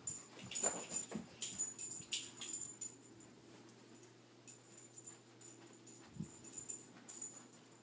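A black Labrador making a few short whining sounds, mixed with irregular rustling and knocking noises, most of them in the first three seconds.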